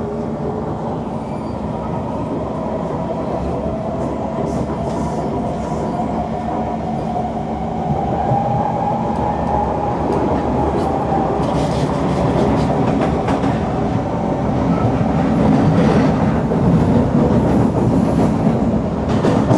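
Kawasaki C151 metro train heard from inside the car as it pulls away and gathers speed. Its traction motors whine in a tone that rises over the first several seconds and then levels off. Wheel rumble and rail-joint clacks grow louder in the second half.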